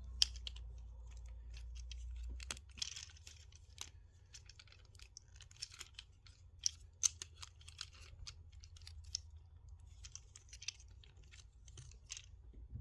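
Small plastic parts of a Transformers action figure clicking and knocking as it is handled and transformed, with short bursts of rustling.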